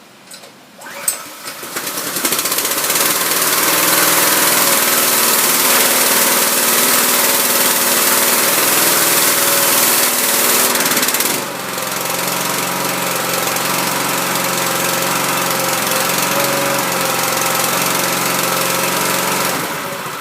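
Small gas engine of a Harbor Freight pressure washer (item 69734) recoil-started from cold with the choke on at half throttle: a sharp pull about a second in, then it catches and runs loud and steady. About eleven seconds in the sound drops to a lower, steadier running note.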